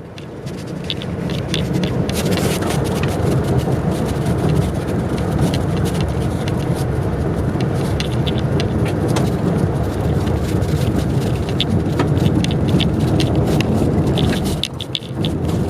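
Subaru Crosstrek driving on a dirt road: a steady road and tyre rumble with frequent sharp clicks and pings of gravel under the tyres, fading in over the first couple of seconds.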